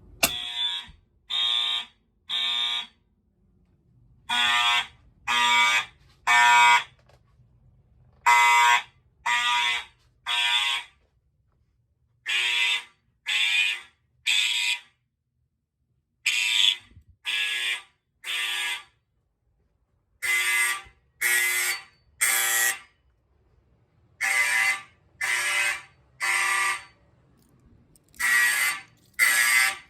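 A click from the manual fire alarm pull station, then several fire alarm horns on an unfiltered full-wave rectified supply sounding together in the code 3 (temporal-three) pattern. Three blasts about a second apart, a pause, and the group repeats.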